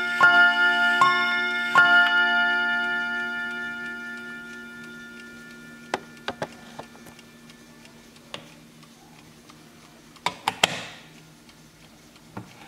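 1965 Hermle mantel clock chiming on its rods: three more notes struck about a second apart, then the rods ring on and die away over several seconds. A few light clicks follow, and near the end a cluster of knocks and a brief rub as the case is handled.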